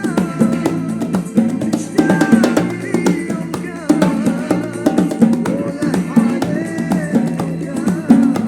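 Arabic pop song playing: a melody over plucked strings and drums with a steady beat.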